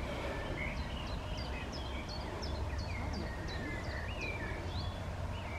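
Songbirds singing: one repeats a short high note about three times a second while another warbles lower, over a steady low rumble.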